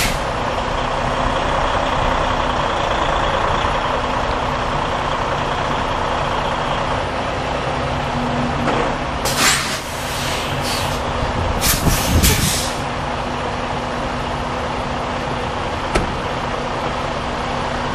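Semi tractor's diesel engine running steadily, with two loud hisses of compressed air from the air brakes about halfway through. A single sharp click near the end.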